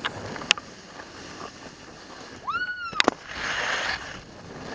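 Hissing and scraping of a board or skis sliding over snow, with sharp clacks about half a second in and twice about three seconds in. Just before those clacks, a short high-pitched whoop rises and holds for about half a second.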